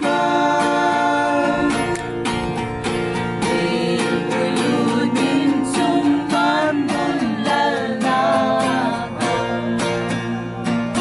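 A small group of voices singing together to strummed acoustic guitars.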